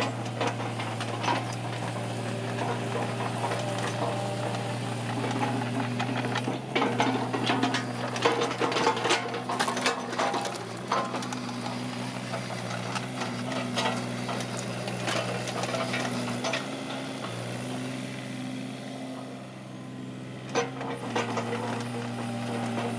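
Mini excavator's diesel engine running steadily, with a spell of metallic clanks and rattles from the machine through the middle.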